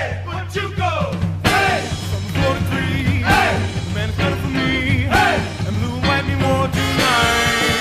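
Background music with a steady bass line and a swooping melodic phrase that comes back about every two seconds.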